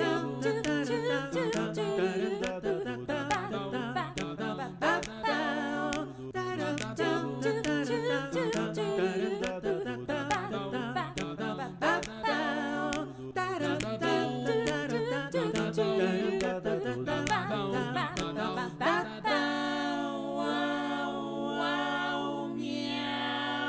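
Several voices singing a cappella in harmony over a held low hummed note, with sharp clicks keeping time. In the last few seconds the voices settle into long held chords.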